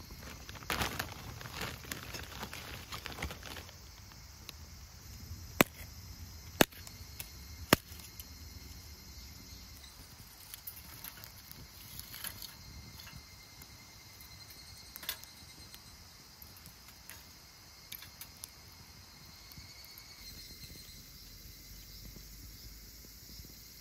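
Insects chirring faintly and steadily. A patch of rustling and patter comes in the first few seconds, and three sharp clicks come about a second apart near the middle.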